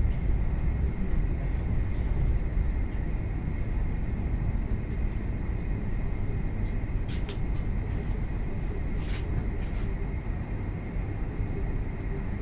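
Lastochka (Siemens Desiro RUS) electric train running between stations, heard from inside the carriage: a steady low rumble of wheels and running gear with a thin steady high whine. A few faint short ticks come in the second half.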